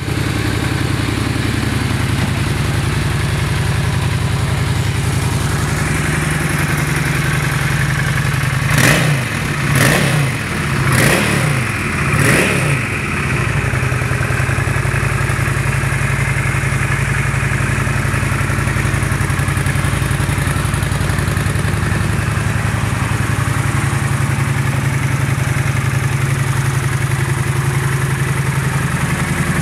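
Honda VT750 Shadow V-twin engine idling steadily, revved with four quick throttle blips about nine to thirteen seconds in before settling back to idle.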